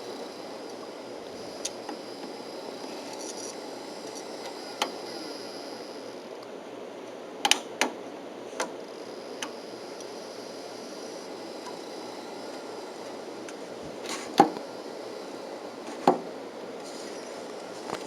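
Scattered sharp clicks and clunks from a 1980s Electrobrand stereo's front-loading cassette mechanism and controls being worked by hand, over a steady hiss. The loudest knock comes about fourteen seconds in.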